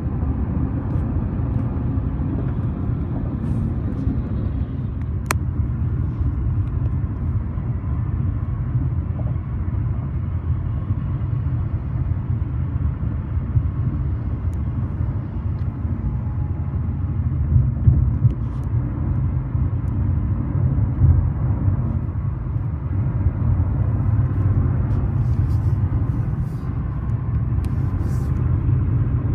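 Road noise inside a moving car's cabin at highway speed: a steady low rumble, with one brief click about five seconds in.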